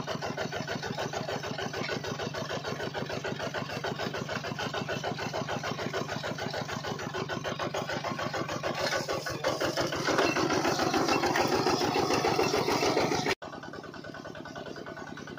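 Miniature single-cylinder diesel-style engine running a water pump, with an even, rapid beat. The sound grows louder about two-thirds of the way in, then drops suddenly and carries on quieter.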